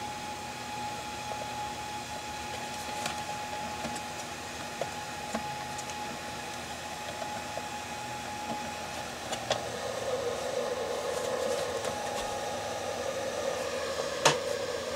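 Small cooling fan running at about 12 volts inside a closed plastic power-supply case, a steady rush of air with a thin steady whine. About ten seconds in the air rush grows louder, and a single sharp click comes near the end.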